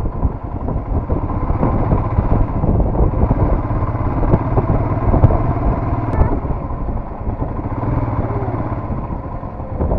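Royal Enfield Himalayan's single-cylinder engine running steadily as the motorcycle is ridden along a wet road.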